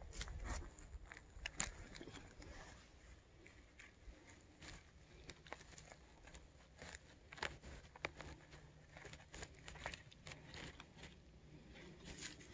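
Faint, scattered rustling and crackling of dry forest-floor litter and twigs, with short irregular clicks.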